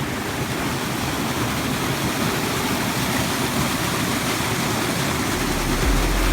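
Steady, even rush of a waterfall's falling water. A deep low hum comes in near the end.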